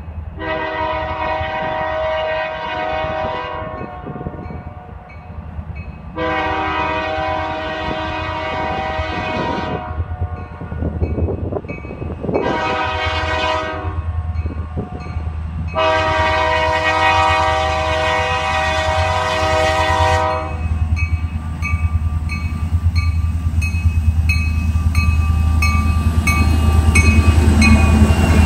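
Diesel freight locomotive's air horn sounding the grade-crossing signal: two long blasts, a short one, then a final long one, as the train approaches. Under it the locomotives' diesel engines rumble, growing louder as the lead unit passes close by near the end.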